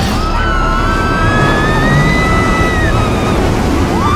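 Onboard ride on the VelociCoaster, a launched steel roller coaster: loud rushing wind and track rumble as the train launches and climbs, with riders letting out long held screams.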